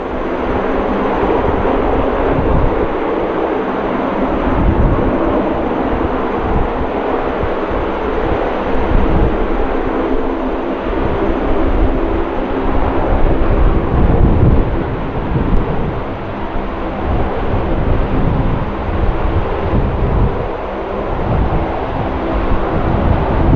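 Lockheed CC-130H Hercules' four Allison T56 turboprop engines running as the aircraft taxis, a steady propeller drone with a low rumble.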